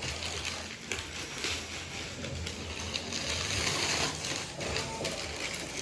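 Wrapping paper rustling and crinkling, unevenly, as a present is unwrapped.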